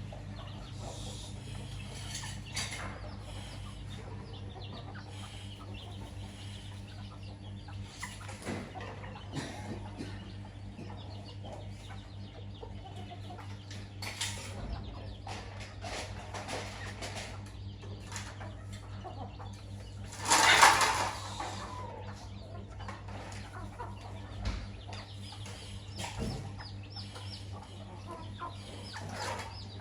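Domestic chickens clucking in short, scattered calls while feeding, over a steady low hum. One much louder, sudden burst comes about two-thirds of the way through.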